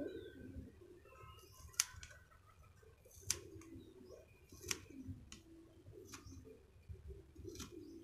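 Scissors snipping off young chickpea greens: five sharp snips about a second and a half apart. Pigeons coo softly in the background.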